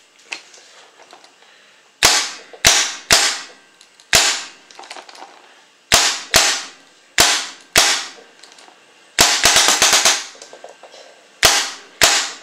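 A Planet Eclipse Ego 06 paintball marker with a Virtue board is firing homemade Model Magic reballs on semi-automatic. Sharp cracks come singly and in pairs, and a quick run of several shots comes about nine to ten seconds in. There are roughly sixteen shots in all.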